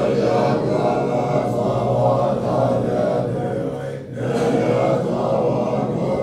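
Background music of sustained, chant-like voices over a steady low drone, dipping briefly about four seconds in.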